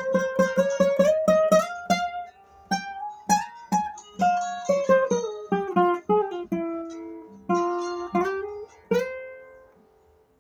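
Solo acoustic guitar playing a quick plucked melody over steadily repeated bass notes. The melody climbs, then winds down, and a last note rings out and fades near the end.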